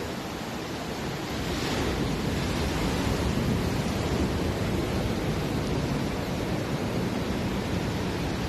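Ocean surf: a steady rush of waves washing in, swelling louder about two seconds in.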